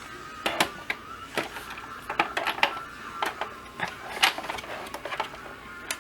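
Irregular light clicks and taps of metal cutting dies and plastic cutting plates being handled and set on a manual die-cutting machine.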